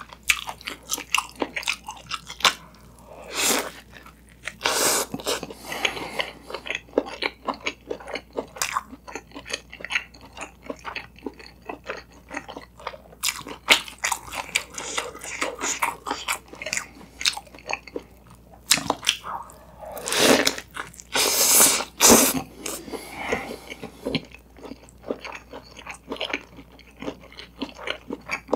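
Close-miked eating of a Korean Isaac Toast sandwich of toasted bread, egg and shredded cabbage: crisp bites and steady wet chewing, with a few louder crunchy bites bunched about two-thirds of the way through.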